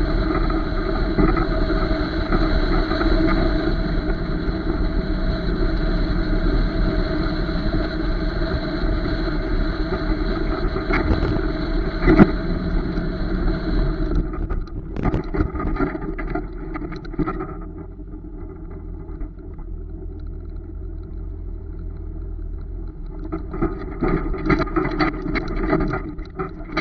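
Pickup truck driving with a loaded trailer in tow: steady engine, tyre and wind noise from a camera mounted on the truck. About halfway through it drops to a quieter, slower run, with a louder uneven stretch near the end as the rig pulls into a gravel yard.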